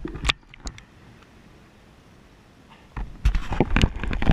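Action camera dipped into a pond, heard from underwater: a few clicks, then a dull, muffled hush, then a run of loud, low knocks and thuds on the housing from about three seconds in.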